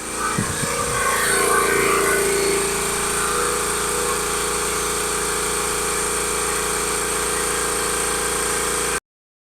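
A motor running steadily with a constant whine, cut off suddenly near the end.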